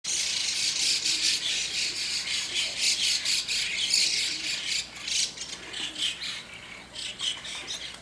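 A flock of white-cheeked starlings calling noisily, many overlapping calls at once, thinning out after about five seconds.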